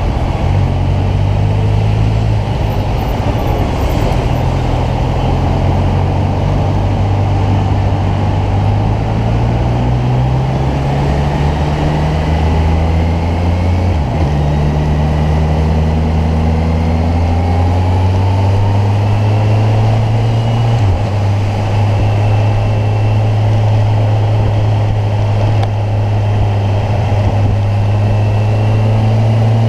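Kawasaki Ninja 1000's inline-four engine running under way. Its note climbs slowly, breaks and drops at two upshifts, about halfway and two-thirds of the way through, then holds steady at a cruise.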